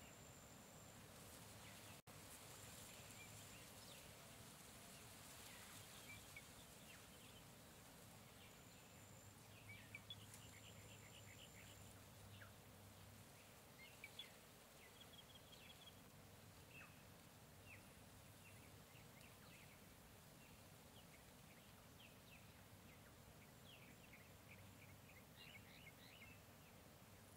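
Faint jungle nature ambience: scattered short bird chirps and calls, with a high thin insect-like tone that comes and goes, over a soft steady background hiss.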